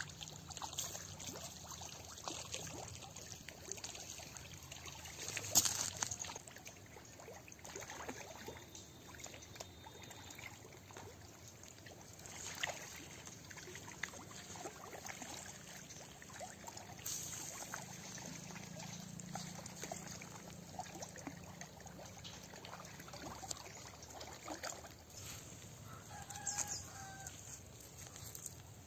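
Water splashing and trickling, with scattered small clicks and splashes and a louder splash about six seconds in. A chicken calls briefly near the end.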